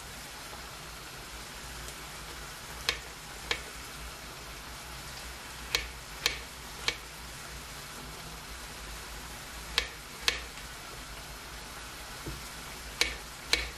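Small kitchen knife slicing button mushrooms on a wooden cutting board: about nine sharp taps of the blade on the board, several in quick pairs. Under them runs the steady sizzle of onions frying in a pan.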